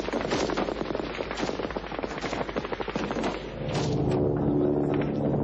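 Rapid, overlapping automatic small-arms fire from rifles and a machine gun laying down covering fire. About three and a half seconds in, the shooting thins to a few scattered shots and a steady droning hum sets in.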